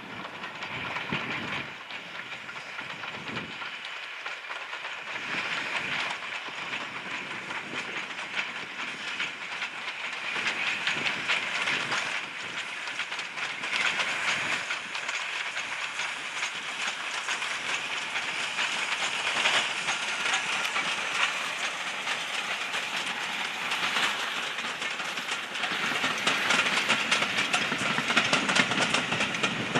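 Steam-hauled passenger train running past, a steady hiss of steam with the clatter of wheels on the rails, getting louder toward the end as the coaches come closest.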